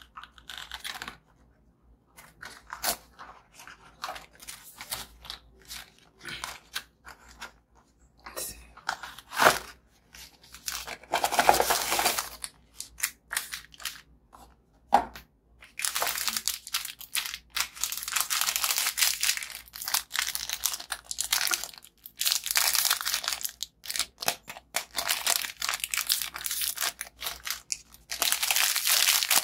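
Plastic biscuit wrapper being handled and torn open: scattered crackles at first, a longer tearing stretch a little before the middle, then near-continuous crinkling through the second half.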